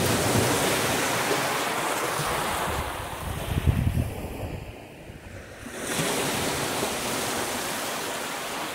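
Small sea waves breaking and washing over a pebble shore, with wind buffeting the microphone; the wash eases off briefly about halfway through.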